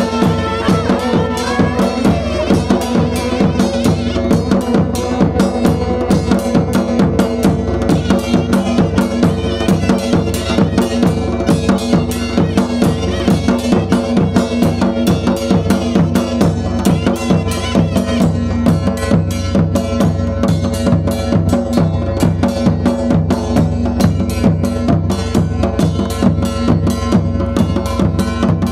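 Traditional Himachali wedding band (baja) playing nati dance music: drums beaten with sticks in a fast, steady rhythm under a held wind-instrument melody.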